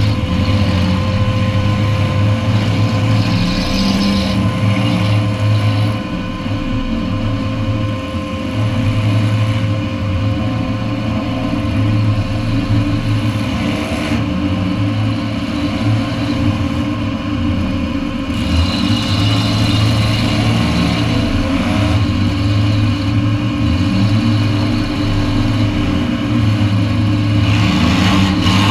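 Demolition derby car's engine heard from inside the stripped cabin, revving up and easing off again and again, with a thin steady whine running over it.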